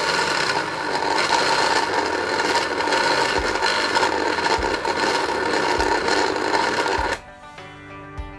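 Small electric food chopper running, its motor whining steadily as the blades grind raw beef with crushed ice into a paste; it switches off about seven seconds in.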